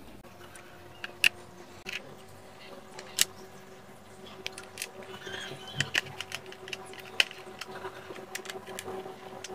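Small screws being driven by hand into a plastic toy racing car: scattered light clicks and taps, more frequent in the second half, over a faint steady hum.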